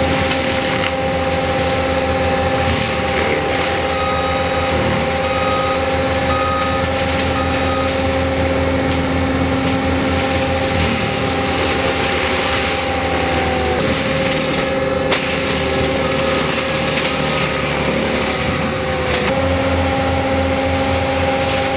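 ASV 135 tracked machine running a forestry mulcher head at full speed, a steady high-pitched whine from the engine and spinning drum over the crackle of wood being ground up. The pitch sags briefly twice, about two-thirds of the way through and again near the end, as the head loads up in the wood.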